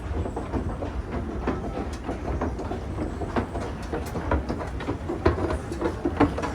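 Old wooden escalator running: a low rumble under a stream of irregular clacks and knocks from the treads and machinery.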